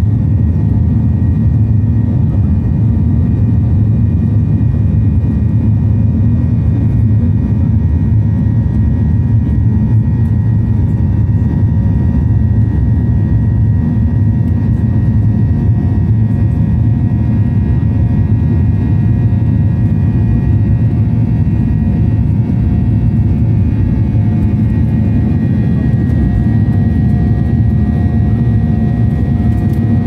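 CFM56-7B turbofan of a Boeing 737 at takeoff thrust, heard from the cabin over the wing: a loud, steady deep rumble with a faint whine on top that grows slightly stronger near the end as the aircraft lifts off.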